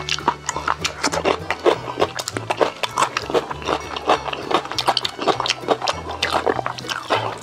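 Close-miked crunching and chewing of crispy-skinned wood-roasted chicken, many sharp crunches in quick succession.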